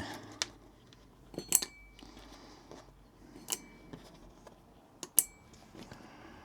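Small metal parts clinking: a handful of sharp metallic clicks spread over several seconds, the two loudest ringing briefly.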